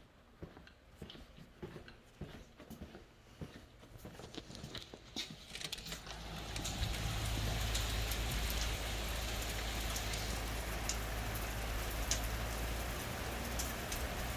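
Rain falling: scattered drops and ticks at first, building about six seconds in to a steady downpour over a low rumble.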